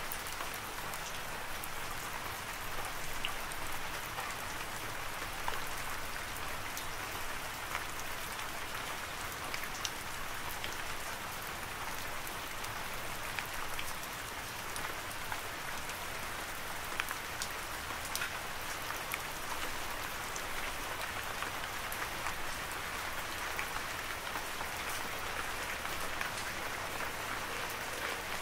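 Steady rain: a dense, even hiss with many small drop ticks scattered through it.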